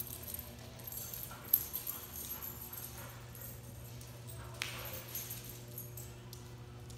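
Dogs' claws clicking and tapping on a hard floor, with one sharp click about a second and a half in and a short scuffing burst a little past the middle, over a steady low hum.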